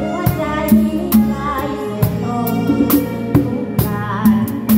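A live band rehearsing: an acoustic drum kit keeps the beat with snare and cymbal hits about twice a second under a full band with bass and a sliding lead melody.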